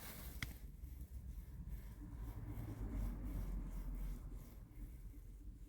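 Quiet room tone with a steady low hum, a single click about half a second in, and faint rustling that swells in the middle and fades.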